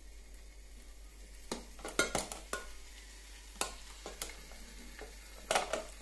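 Scattered sharp clicks and knocks of plastic and metal parts of a De'Longhi espresso machine being handled, with a quick cluster of them about two seconds in and a few more near the end.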